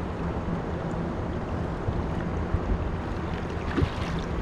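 Wind rushing over the microphone on an open boat, over a steady low hum and water noise, with a couple of soft knocks in the second half.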